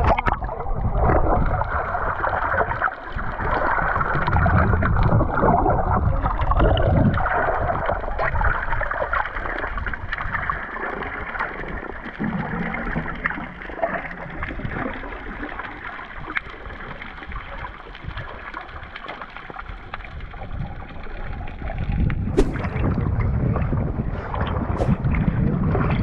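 Muffled sloshing and bubbling water with a low rumble, heard underwater through an action camera's waterproof case as swimmers move around a fishing net. A few sharp clicks come near the end.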